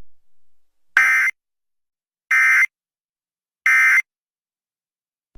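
Emergency Alert System end-of-message signal: three short, identical bursts of digital SAME data tones, a little over a second apart, marking the end of the alert.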